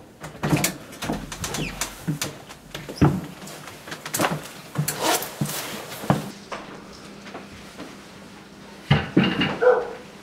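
A house door being opened and shut, with footsteps and knocks of people coming inside; a quick run of knocks at the start and another cluster near the end.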